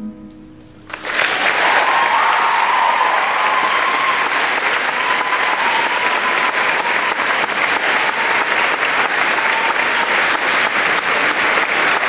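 The last chord of a classical guitar dies away, and about a second in an audience breaks into steady applause that carries on.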